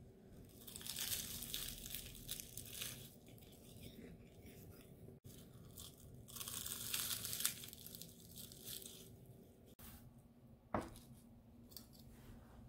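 Flaky puff pastry crackling and crunching as it is torn and bitten, in two spells of a few seconds each. A single soft knock near the end.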